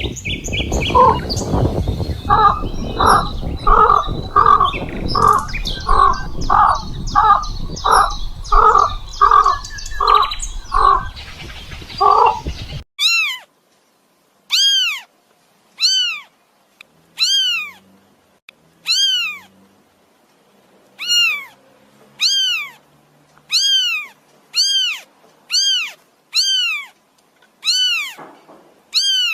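For about the first thirteen seconds an animal call repeats about one and a half times a second over a steady noisy background, with some higher chirps. Then it cuts off sharply and a kitten meows repeatedly: about fourteen high, arched meows, roughly one a second.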